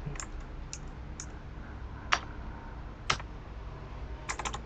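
Computer keyboard keys struck one at a time: five separate keystrokes spaced well apart, then a quick run of several near the end, as a line of code is corrected by backspacing and retyping.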